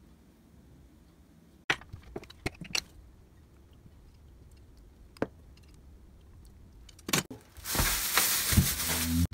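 A few light clicks and taps, then, for the last second and a half, loud crinkling of a plastic bag of food packages being handled.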